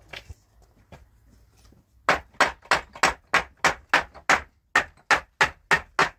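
Hammer blows struck in quick steady succession, about three a second, starting about two seconds in.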